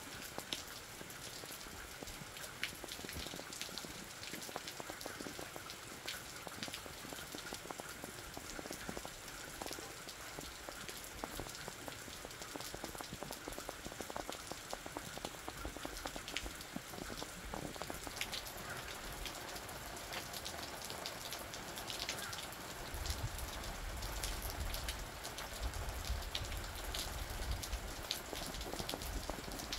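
Steady spring rain falling on a pavilion's roof and the ground around it, an even hiss with scattered sharp drip ticks. A low rumble joins in about three-quarters of the way through.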